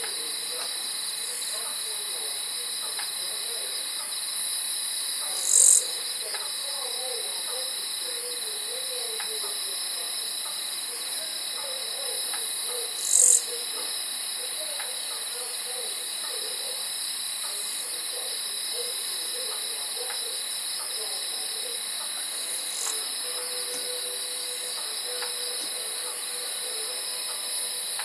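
Night-time insect chorus: a steady, high-pitched trilling with a fainter steady note beneath it, swelling much louder twice, briefly, at about 5 and 13 seconds in. Faint low wavering calls run under it through the first half.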